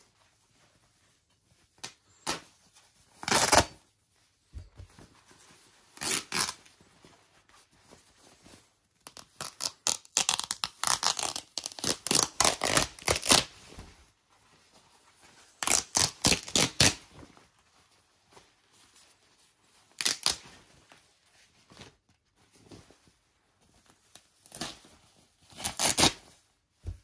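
Blue leather skirt being ripped apart by hand: several separate bursts of tearing, the longest and densest run about ten to fourteen seconds in.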